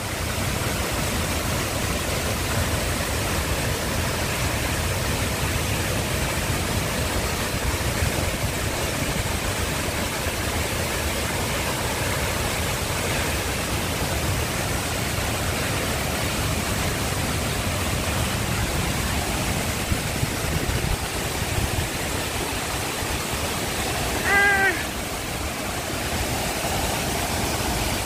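A large waterfall rushing loudly and steadily, heavy water pouring hard onto the rocks below with a deep rumble under the hiss. Near the end a brief voice cuts in for a moment.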